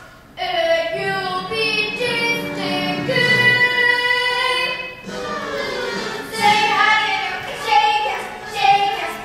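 Young voices singing a stage musical number, holding a long note about halfway through.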